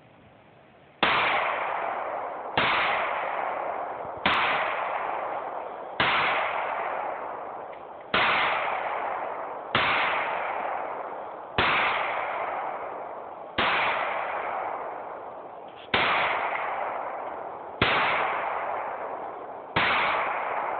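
Glock 19 9mm pistol fired in slow, steady single shots, about eleven of them roughly two seconds apart, each shot trailing off in a long echoing decay.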